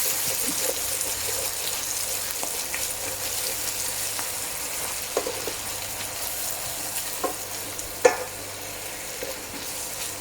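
Browned onions, tomato, ginger, garlic and green chillies sizzling in sunflower oil in a pan, the sizzle slowly easing off. A few short clicks break through, the loudest about eight seconds in.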